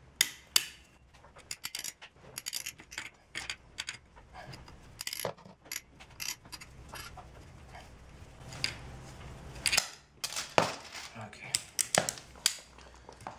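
Irregular sharp metallic clicks and clinks of steel spokes, a bicycle hub and locking pliers being handled as the spokes are worked out of the hub flange, the loudest clinks coming near the end.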